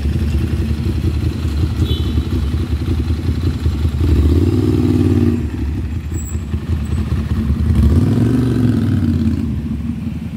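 Road traffic passing close by, including motorcycle engines, over a steady low engine rumble; the loudest passes come about four seconds in and about eight seconds in.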